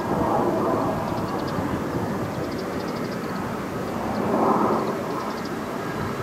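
Fighter jet on final approach to land, its engine a steady rushing noise that swells about four seconds in as the jet comes closer.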